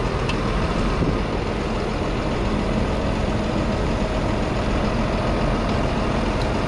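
McCormick X7.621's 6.7-litre six-cylinder diesel engine running steadily at close range.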